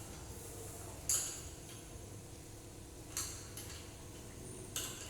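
Hand tools and metal engine parts clinking against each other during motorcycle engine disassembly: three sharp metallic clinks, about a second in, about three seconds in, and near the end.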